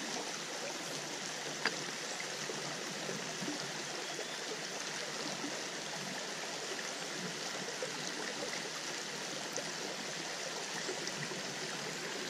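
Small woodland stream running over rocks in a shallow riffle: a steady, even rush of water. One faint click stands out briefly near the start.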